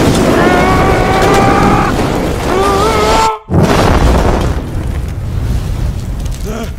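Movie sound effects of a huge blast: a loud, continuous rumble with a man's strained, pained yell over it for about the first three seconds. The sound cuts out for an instant about three and a half seconds in, then the rumble comes back and slowly dies down.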